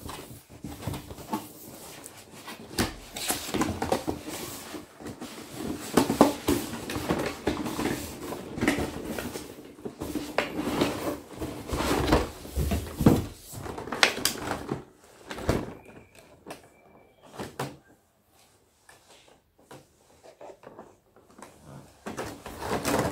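Cardboard box and clear plastic packaging tray handled and pulled apart while a toy truck is unboxed: an irregular run of rustles, scrapes and knocks that thins to scattered light knocks over the last several seconds.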